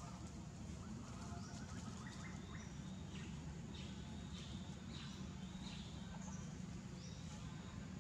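Faint forest ambience: a steady low rumble with short high chirping calls repeating about once a second from about two seconds in.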